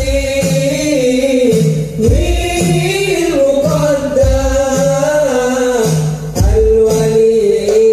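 Hadroh group performing sholawat: a voice sings a long, ornamented melody line over rebana frame drums, with jingles and a deep drum beat about every two seconds.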